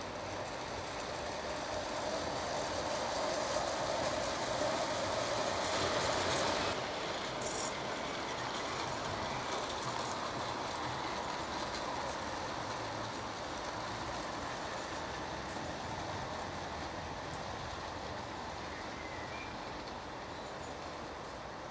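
Gauge 1 model locomotive and wagons running along garden track, wheels rumbling and clicking on the rails. The sound is loudest about five to seven seconds in as the train passes close, then fades as it runs away.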